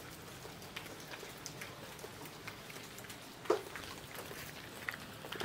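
Faint footsteps across the yard: scattered soft crackles and ticks over a steady outdoor hiss, with one louder knock about three and a half seconds in.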